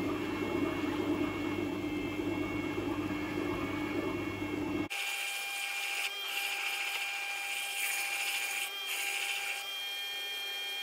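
Scheppach Tiger 3000VS wet-stone grinder running at a raised speed while a long knife is stropped on its leather honing wheel, a steady motor hum with a whine. About halfway through, the sound changes abruptly: the low hum drops away and a thinner, higher whine carries on.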